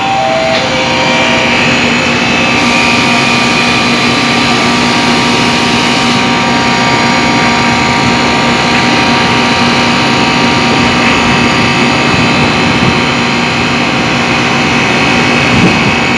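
Air conditioner outdoor unit running steadily: the compressor's hum under the condenser fan's noise, while the system is being charged with refrigerant.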